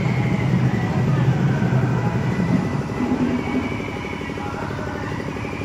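Steady low rumble of a running engine, with a fast, even pulse, easing slightly about three seconds in.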